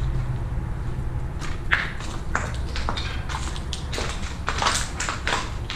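Footsteps crunching over a debris-strewn floor, irregular steps about two a second starting a little over a second in, over a low steady rumble.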